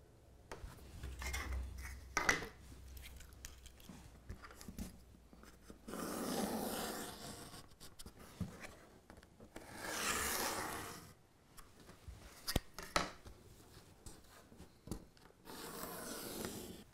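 Pencil scribing lines on a plywood baseboard: faint scratching and rubbing, with two longer strokes about six and ten seconds in, among light taps and knocks.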